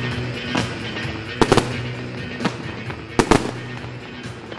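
Fireworks shells bursting in sharp bangs, the loudest as two quick pairs about a second and a half in and about three seconds in, with lighter pops between. Show music with long held notes plays underneath and fades.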